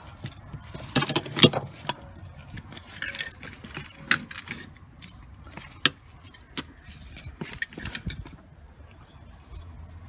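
Irregular metallic clinks and rattles of small metal parts being handled, such as seat-belt hardware, bolts and washers: about a dozen sharp clinks, spaced unevenly.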